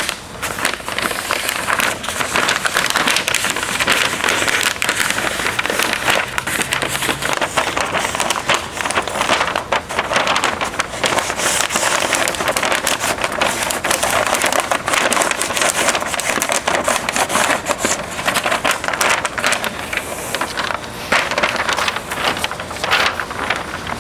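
Paper crinkling and rustling as a sheet is pressed and folded over a wire-form buck to take a rough pattern, a steady stream of small crackles.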